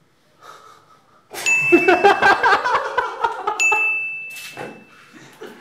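Two men burst out laughing about a second in. Over the laughter come two high, bell-like ding sound effects about two seconds apart, each marking a laugh point scored.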